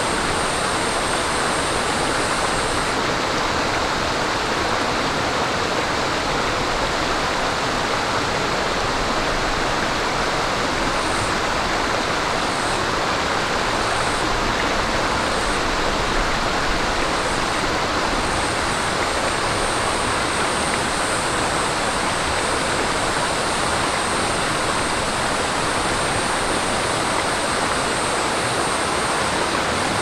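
Mountain stream running over rocks: a steady, even rush of babbling water. A thin high note sits above it, in short pulses from about a third of the way in and held continuously from a little past halfway.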